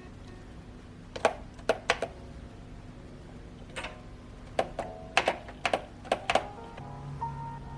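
Keys being tapped on a BT21 x Royche baby wireless retro keyboard: about a dozen sharp, uneven keystroke clicks, a few at first and then a quicker flurry a little past the middle.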